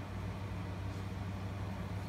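Steady low hum with a faint hiss: room tone.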